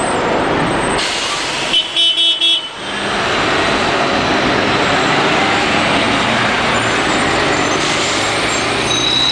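Steady street traffic noise with a city bus driving past; about two seconds in, a vehicle horn gives a quick run of short toots.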